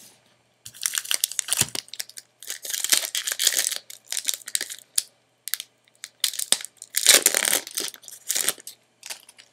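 Foil Magic: The Gathering booster pack wrapper crinkling and tearing as it is handled and opened, in several irregular bursts of crackling.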